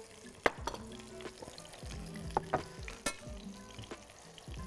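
A tortilla wrap frying in an oiled pan with a light sizzle, broken by a few sharp clicks and knocks, with soft background music under it.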